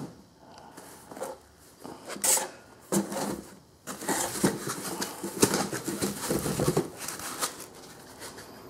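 Unboxing handling noise: a laptop in a cloth sleeve and foam packing inserts are shifted and lifted out of a cardboard box, with irregular soft rustles and a few sharper scrapes, busiest in the second half.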